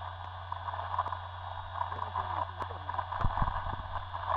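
FPV model plane's electric motor and propeller running steadily under part throttle in flight, mixed with wind rush, with a few low buffets of wind about three seconds in and again at the end.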